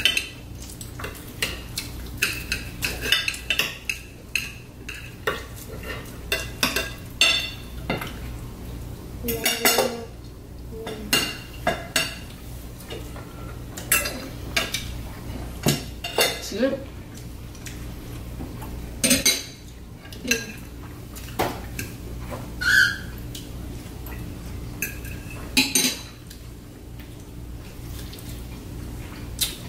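Forks, knives and serving tongs clinking and scraping on plates as food is served and steak is cut, in irregular sharp clinks throughout, over a steady low hum.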